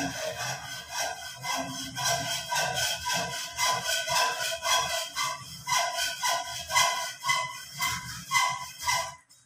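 Construction-site noise: rhythmic rasping strokes like hand sawing, about three a second, with a steady high ringing over them, stopping suddenly near the end.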